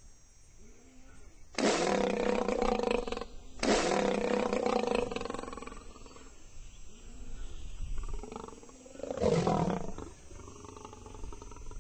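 African lion roaring: two long, loud roars close together, then several softer, shorter calls, then a third loud, shorter roar about nine seconds in.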